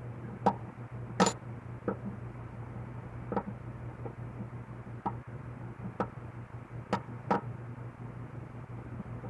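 Irregular light clicks and knocks from small tools and gun parts being handled during disassembly, about nine in all, the sharpest about a second in, over a steady low hum.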